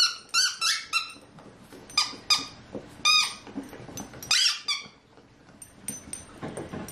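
Squeaky dog toy squeaking over and over as an Alaskan Malamute puppy chews on it: short, high-pitched squeaks in quick clusters over the first five seconds, then quieter near the end.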